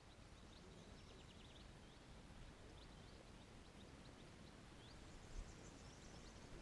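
Near silence: faint outdoor ambience with a low rumble and small birds chirping faintly in short, quick calls.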